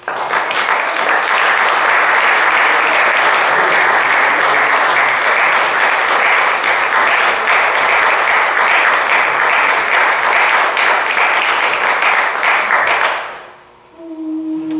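Audience applauding steadily for about thirteen seconds, then dying away. Near the end the quartet's four men's voices begin a held a cappella chord.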